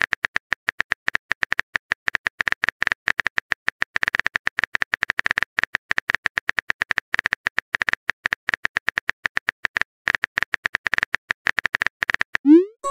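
Rapid, irregular keyboard typing clicks, a chat app's typing sound effect, many taps a second. Near the end a short rising swoop begins the new-message sound.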